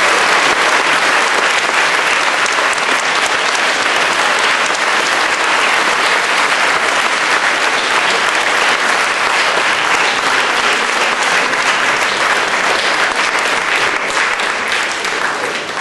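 Audience applauding: a hall full of people clapping steadily and loudly, dying away near the end.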